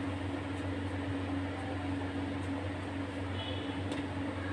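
Steady low mechanical hum with a constant tone and even background noise, like a motor running. A few faint light clicks come through over it.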